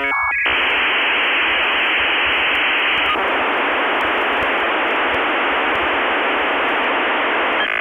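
Steady static hiss, like a telephone or radio line, starting about half a second in after the tail of a short electronic beep tone, and cutting off just before the end.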